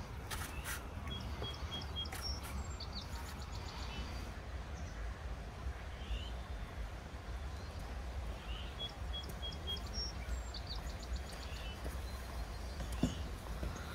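Birds chirping over a steady low outdoor rumble. One bird repeats a short phrase of four quick high notes twice. A single sharp knock comes near the end.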